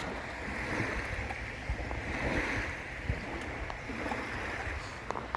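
Wind buffeting the microphone over lapping lake water, a steady rushing noise with no engine running, and a few faint clicks near the end.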